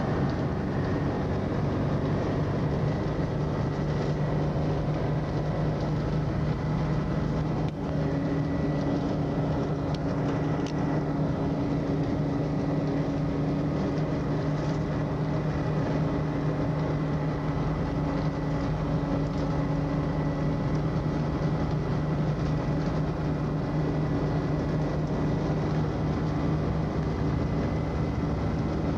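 Steady drone of an intercity coach cruising at highway speed, heard from inside the cabin: engine hum and road noise, with a second, higher hum joining about eight seconds in.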